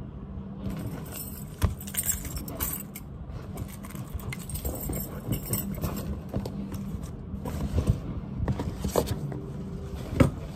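Belongings being packed into a canvas tote bag on a desk: cloth rustling, with scattered small knocks, clinks and rattles of objects being handled, over a steady low hum.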